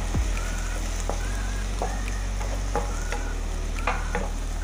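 Wooden spatula stirring and scraping pieces of raw pork around a coated frying pan in a little hot water, with irregular scrapes and knocks, some with a short squeak. A steady low hum sounds underneath.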